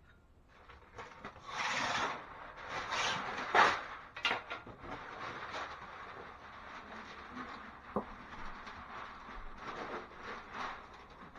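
Masking plastic and paper being handled and pressed into place, rustling and crinkling in loud bursts over the first few seconds, then a steadier softer rustle with one sharp click about eight seconds in.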